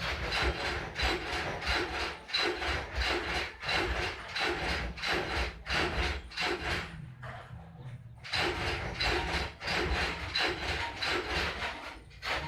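Rhythmic rough scraping strokes, about two a second, over a low steady hum; the strokes pause for about a second around seven seconds in, then resume.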